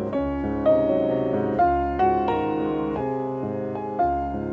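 Background piano music: a slow melody of single notes struck about once a second over held chords.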